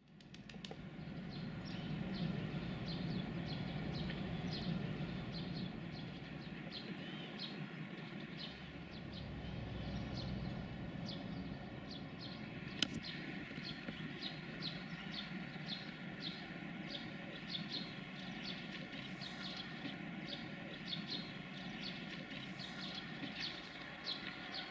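Small birds chirping over and over, with a low rumble underneath that is loudest in the first few seconds. A single sharp click comes about halfway through.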